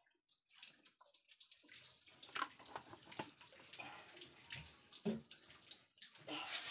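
Cooking oil heating in a steel pan on a gas stove, faintly crackling and popping. The crackle starts about a second and a half in, after a near-silent pour.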